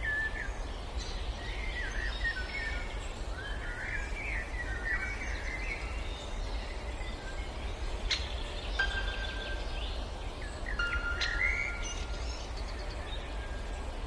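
Birds chirping over a low, steady rumble, with clear chime tones ringing out about eight seconds in and again around eleven seconds.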